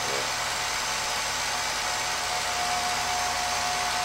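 Home-movie film projector running: a steady whir with a constant faint whine over it.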